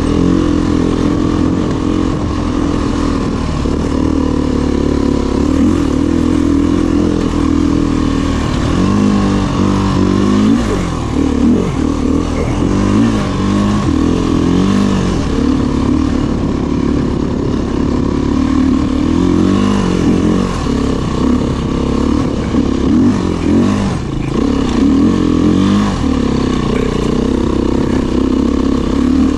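Dirt bike engine running as the bike is ridden. Its revs hold steady at first, then rise and fall repeatedly with the throttle from about a third of the way in.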